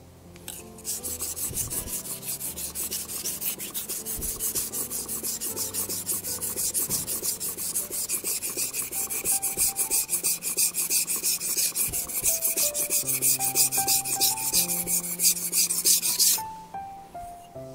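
Steel kitchen knife blade scraping back and forth on a wet whetstone in fast, even strokes, about four a second, held nearly flat to thin the blade behind the edge. A thin high ring joins about halfway through, and the strokes stop shortly before the end.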